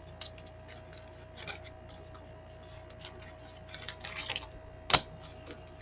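Small rubbing and scraping handling noises, with a sharp click just before the end: coin holders being moved and set down between items. A faint steady hum runs underneath.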